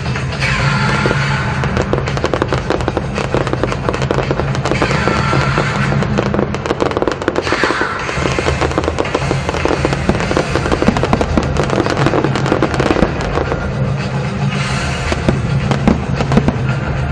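Aerial fireworks show: dense crackling and popping bursts throughout, with three falling whistles from rising shells, over steady background music.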